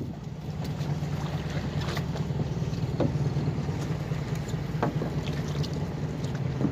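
Fishing boat's engine running with a steady low hum, with a few faint knocks.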